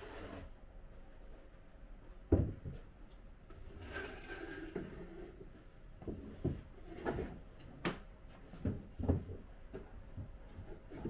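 Small wooden boxes being handled on a wooden cabinet top: a run of wooden knocks, the loudest about two seconds in, with a short scrape of wood on wood around the middle.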